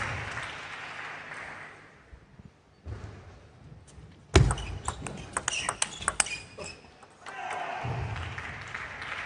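Table tennis ball clicking sharply off bats and table in a quick rally for about three seconds in the middle. Crowd noise fades at the start and rises again near the end.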